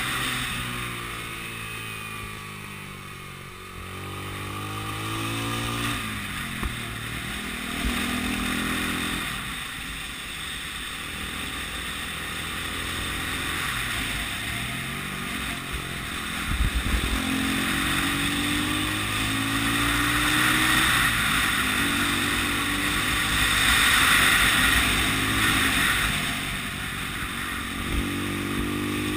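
The single-cylinder four-stroke engine of a 1980 Honda CB 250 RS on the move, its pitch falling as it slows and rising as it accelerates again, several times over. A steady rush of wind noise runs underneath and grows louder toward the end.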